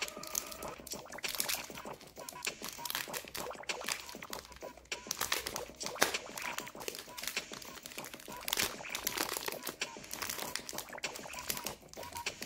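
Candy-bar wrapper of a Hershey's Gold bar crinkling and tearing as it is unwrapped by hand, in many sharp crackles with one louder snap about halfway through.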